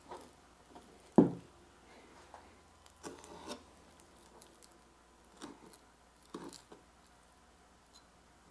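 Fillet knife cutting and tapping against a plastic cutting board while pin bones are cut out of walleye fillets: a few quiet scrapes and taps, the sharpest a short knock about a second in.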